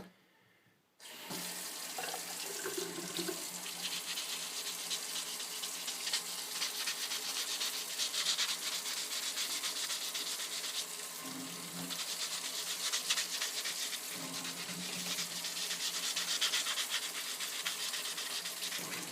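Wet sanding a plastic turn signal lens with 600-grit sandpaper: rapid back-and-forth scratching strokes, wet and hissy, starting about a second in. This is a light sanding to scuff the lens for better paint adhesion.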